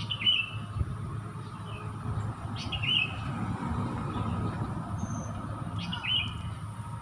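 Sooty-headed bulbul (kutilang) calling: three short, bright chirping phrases a few seconds apart, over a steady low rumble.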